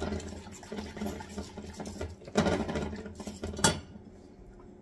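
Stirring at the stove: a red whisk working gravy in a small stainless saucepan and a silicone spatula stirring a thick, creamy turkey mixture in a skillet, giving irregular scraping and clinking. A sharp clack comes about three and a half seconds in, and then the stirring stops.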